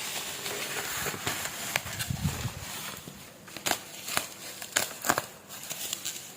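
Plastic bubble wrap being pulled off and crumpled by hand: a steady crinkling rustle with many scattered sharp crackles.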